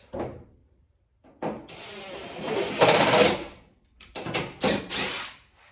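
Cordless drill run against a fibreglass-style body flare in one long burst of about two seconds, loudest near its end as it bites in, then about four quick trigger bursts. This is the drill fastening the flare to the fender, as the self-tapping screws he uses to hold it in place are driven.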